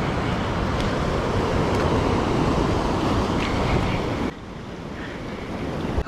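Wind noise on the microphone over surf at the shoreline, a steady rough rushing that drops abruptly to a quieter level about four seconds in.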